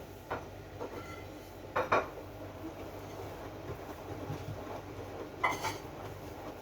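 AEG DualSense washing machine running its drum-clean cycle: a steady low hum with a few short clanks and clatters, the loudest about two seconds in and another near the end.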